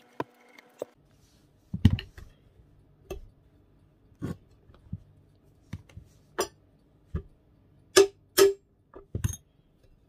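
Metal hand tools and the cast-metal housing of an old bench grinder being handled and knocked during disassembly: a series of separate metallic clanks and knocks, some briefly ringing, the two loudest close together near the end.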